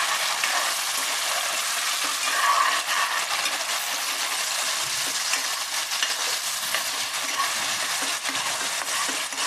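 Ground raw onion, tomato and coriander paste frying in hot oil in a kadhai: a steady sizzle with fine crackling. A spatula stirs it through the pan.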